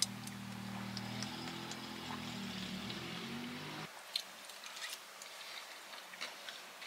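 A steady low hum for about four seconds that cuts off abruptly, then quiet eating sounds: a fork clicking against a clear plastic bowl and chewing.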